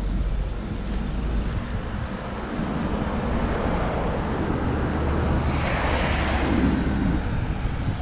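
A vehicle passing by, swelling to its loudest about six seconds in and then fading, over a steady low rumble of wind on the microphone.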